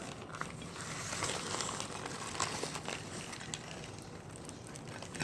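Chewing crunchy chunks of baked Argo laundry starch: a continuous crackling crunch with many small sharp cracks, busiest in the middle.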